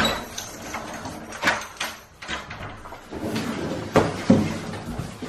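A large cardboard shipping box being handled and moved, with rustling and scraping, while a door is opened. Two sharp knocks about four seconds in are the loudest sounds.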